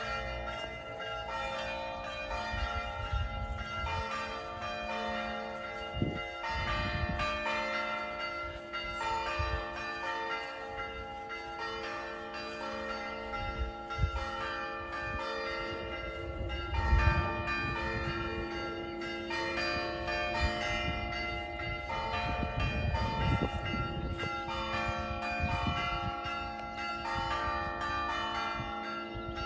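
Church bells ringing continuously, several bells struck over and over with their long tones overlapping. A few low thumps sound now and then beneath the bells.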